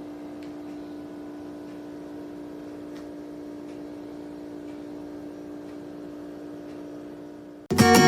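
A steady machine hum with a fixed pitch, with a few faint ticks. Strummed acoustic guitar music cuts in abruptly near the end.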